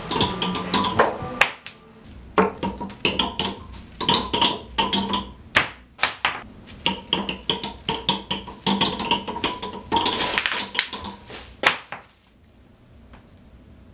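A small ink-covered ball clattering down through rows of pins on a board, giving quick, irregular taps and plinks with short ringing tones. It stops about twelve seconds in.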